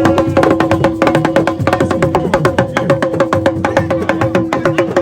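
Fast, dense drumming, many sharp strokes a second, over a steady held tone.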